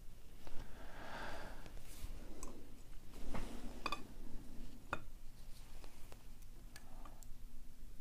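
A few light metallic clicks and soft handling rustle as brass lock pins are picked out of the lock housing with tweezers and set down in a steel pinning tray; the clearest clicks fall about four and five seconds in.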